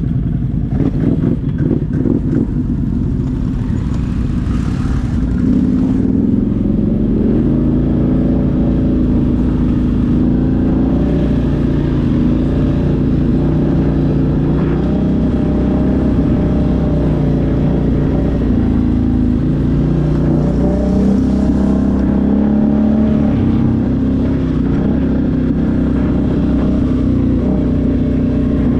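ATV engine running under load, its pitch rising and falling as the throttle is worked.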